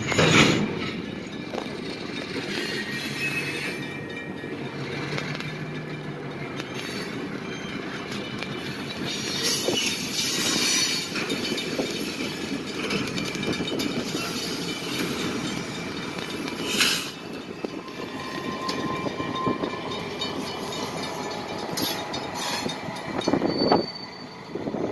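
Freight cars rolling slowly past during a yard switching move: a steady rumble of wheels on the rails with a few sharp clanks and a faint wheel squeal.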